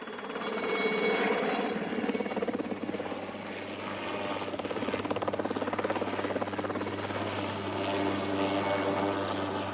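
Helicopter sound effect: rotor blades chopping fast and evenly over a steady engine drone. It fades in over the first second.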